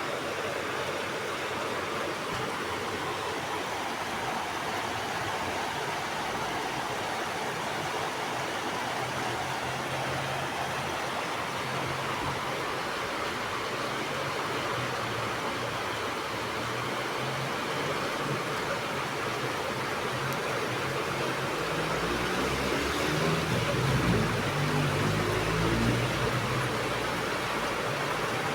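Rain falling in a steady hiss. A low engine hum sits under it from about a third of the way in and swells near the end, as a vehicle passes, then fades.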